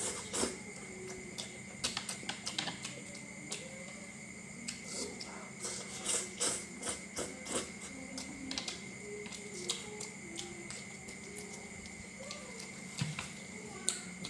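Close-miked chewing and crunching of crispy fried meatballs and noodles, with wet mouth clicks and crackles coming in quick irregular bursts, over a steady faint hum.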